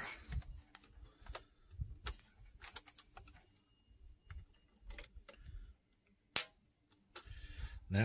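Small metal clicks and scrapes of a flat-blade screwdriver working the choke spring and cable loose on a Predator 3500 generator, with one sharper click near the end.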